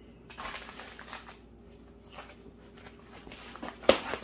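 Diamond painting kit packaging being handled: irregular rustling and crinkling, with one sharp knock near the end.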